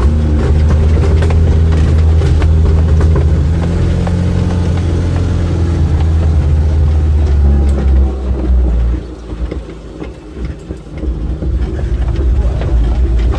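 Off-road vehicle's engine running steadily as it drives over a rough dirt track, heard from inside the open cab, with scattered knocks and rattles. About eight seconds in the engine drops away for a few seconds, then picks up again.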